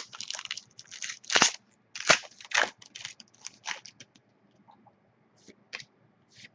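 Trading-card pack's foil wrapper being torn open and crinkled: a quick run of sharp crackles for about four seconds, then a few scattered ones.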